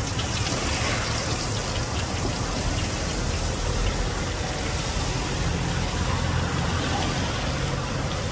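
Hot oil sizzling steadily in a wok as rolls coated in unripe rice grains deep-fry, with a low steady rumble underneath.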